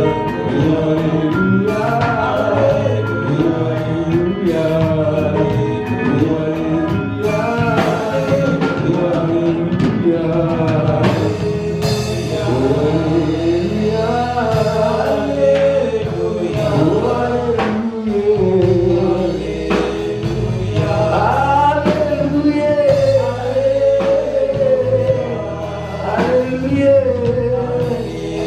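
Live gospel praise-and-worship music: voices singing over a full band, with steady drum hits.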